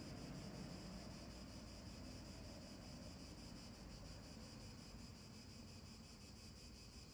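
Near silence: faint outdoor background noise, a steady high-pitched drone over a low rumble.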